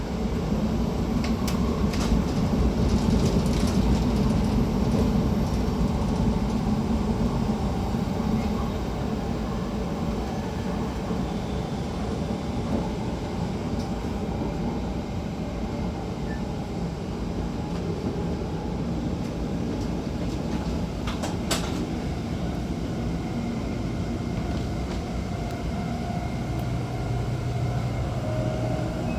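The gangway connection between two cars of a Taiwan High Speed Rail train in motion: a steady, dense rumble of running noise, louder for a few seconds near the start. A few sharp clicks come through, one near the start and one about two-thirds of the way in.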